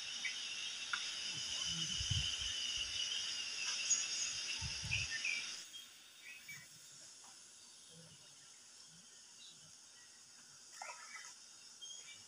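Steady high-pitched insect buzz that cuts off abruptly about halfway through, leaving a quieter rural background with a few faint chirps. Two short low rumbles come in the first half.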